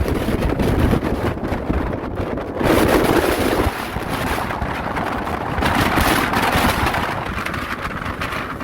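Typhoon-strength wind buffeting the microphone with a heavy low rumble, over the rush of storm waves breaking on the shore. The surf swells loudly about three seconds in and again about six seconds in.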